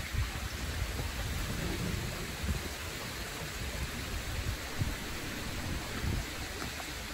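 Steady outdoor hiss with uneven low rumbling of wind on the microphone.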